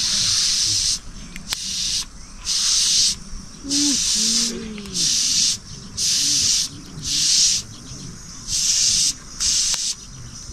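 Rhythmic rasping strokes, about one a second, each a short hiss.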